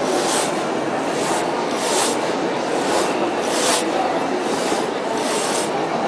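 Large broad-bladed hand saw ripping lengthwise through a big log: steady rasping strokes of the teeth cutting wood, a little under two a second.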